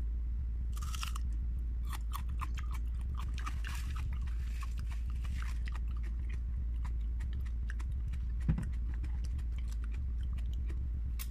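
Close-up chewing and crunching of raw onion, with crisp crunches coming thick in the first half and sparser later. One low thump comes about eight and a half seconds in, and a steady low hum runs underneath.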